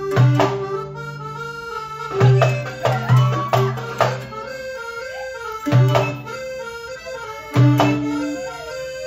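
Live band music led by an accordion, with violin and guitar, played in an uneven rhythm of strong low accented beats.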